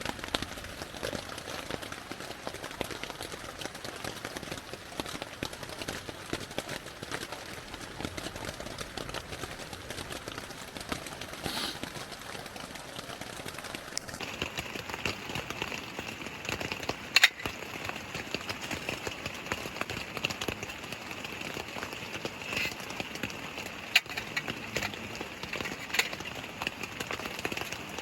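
Steady rain with drops tapping close by over the rush of a mountain stream. The mix shifts abruptly about halfway through, and a few sharper taps stand out in the second half.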